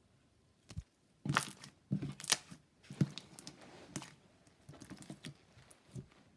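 Slime being squeezed and pressed by hand, making irregular sticky crackling and popping clicks. The clicks are loudest between about one and three seconds in, with softer ones after.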